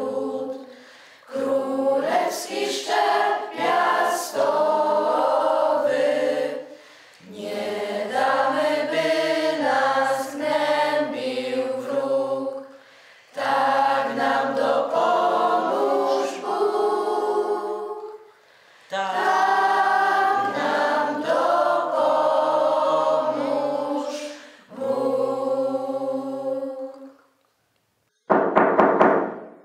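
A group of voices singing a song together in chorus, in phrases of a few seconds each with short breaks between. The singing stops about 27 seconds in, and a brief loud burst follows near the end.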